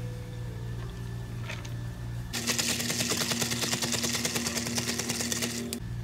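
Ice cubes clattering rapidly against a plastic cup as an iced milk drink is stirred with a straw, for about three seconds starting a couple of seconds in. Before it, milk pours faintly over the ice.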